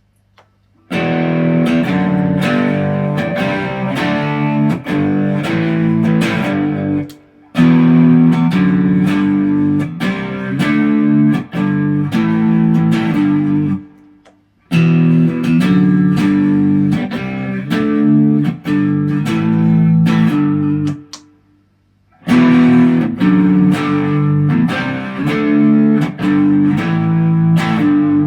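ESP LTD EC-256 electric guitar played through an amp: four phrases of picked notes and chords, with a short break between each phrase.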